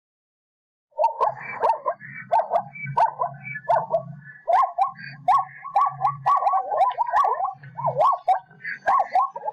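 Zebra calling: after about a second of silence, a rapid series of short, dog-like barking calls, about two a second, each with a low grunt beneath it.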